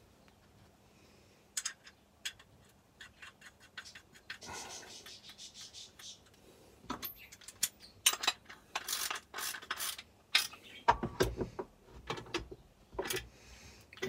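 Metal tools and chainsaw parts being handled while a crankshaft installation jig is fitted to a Stihl MS460 crankcase: scattered clicks and short scrapes that grow louder and come in quicker runs from about eight seconds in, with a dull knock around eleven seconds.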